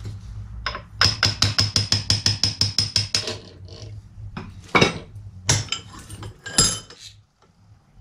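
A hammer taps quickly and lightly on metal, about nine blows a second for two seconds, each with a short ringing tone. A few single harder blows follow. The work is on a part of a Shimano Nexus 7-speed gear hub clamped in a bench vise.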